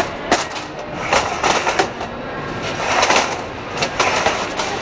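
Computer assembly factory floor noise: a dense clatter with sharp clicks and knocks, rising and falling in loudness.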